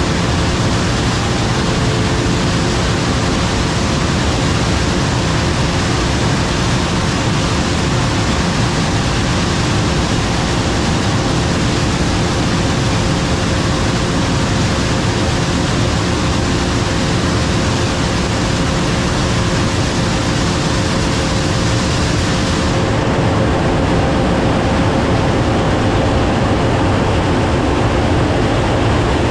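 Combine harvester running steadily under load: a heavy, even rush of machine noise over a constant engine hum. About three-quarters of the way through, the high hiss drops away abruptly while the hum carries on.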